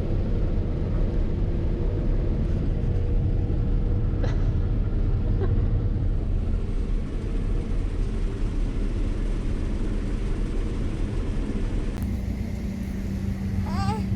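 Claas Lexion combine harvester running steadily: a continuous low engine rumble, with a steady hum joining about twelve seconds in.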